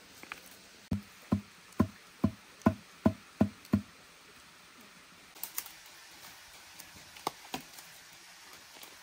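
A green bamboo tube being knocked: eight sharp, hollow knocks in quick succession, about 0.4 s apart, fading out after a few seconds. A few lighter clicks and knocks follow later.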